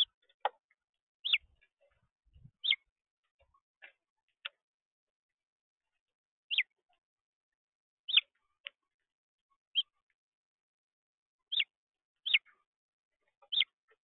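House finches giving short chirp calls, about a dozen at irregular intervals, each note falling sharply in pitch.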